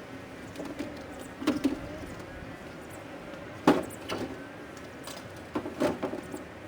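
Several sharp clunks and knocks, the loudest about three and a half seconds in, over a steady background noise.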